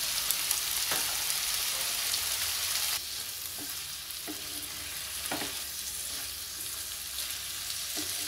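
Cauliflower florets, green peas and onion sizzling in oil in a nonstick frying pan while a wooden spatula stirs and scrapes through them in short strokes. The sizzle drops to a lower level about three seconds in.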